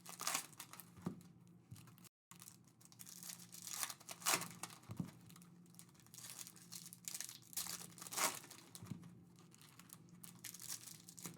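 Wrapping and packaging of trading card boxes and packs being torn and crinkled by hand, in short scattered rustles.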